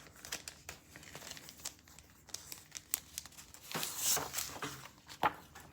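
Plastic comic-book bag crinkling and rustling as it is handled, with many small clicks and a louder rustle about four seconds in.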